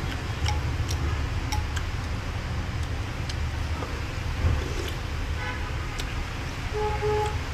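Steady low rumble of street traffic, with a short vehicle horn toot near the end. Light sharp clinks of a spoon and chopsticks against the soup bowl come now and then.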